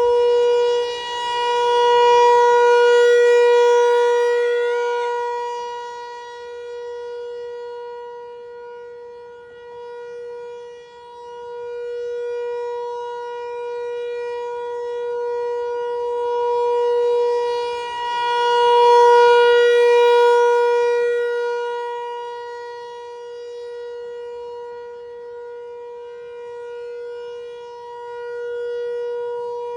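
Outdoor civil-defense warning siren sounding a steady-tone test blast: one held pitch with strong overtones, swelling and fading in loudness.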